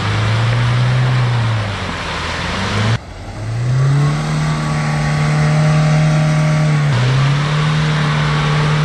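Mahindra Thar 2020's engine revved hard, its pitch climbing and falling and then held high, as the stuck SUV spins its wheels in deep mud trying to drive out. The sound breaks off and jumps abruptly about three seconds in, and shifts again about seven seconds in.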